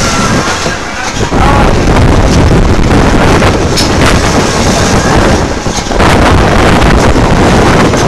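Loud wind rushing over the microphone with a deep, uneven rumble, as when the camera rides along on a moving carnival ride. It dips briefly about a second in and again just before six seconds.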